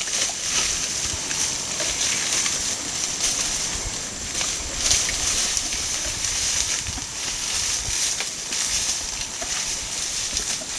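Dry bamboo and leaf litter rustling and crackling as young Asian elephants forage through it with their trunks and feet, with many short irregular crackles over a steady high-pitched hiss.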